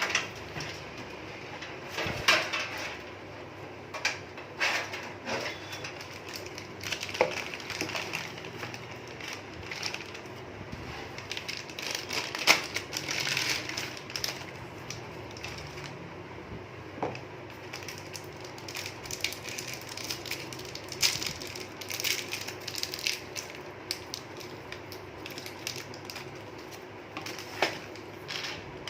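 Irregular handling noises of computer parts and a PC cabinet: scattered knocks, clicks, scrapes and rustles as the case and hard disk are handled.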